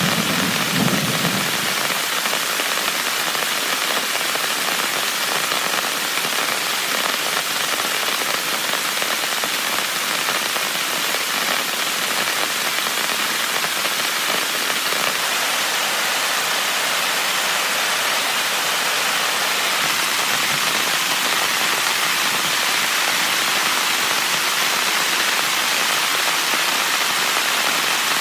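Heavy rain drumming steadily on a tent, a dense even hiss with a short low rumble about a second in.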